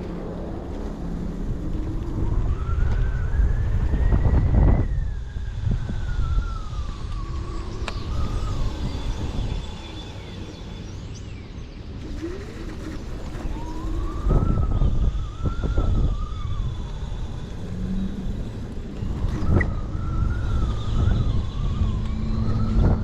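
Kaabo Mantis electric scooter's dual hub motors whining, the pitch climbing as the scooter speeds up and sinking as it slows, three times over, above a heavy rumble of wind on the microphone.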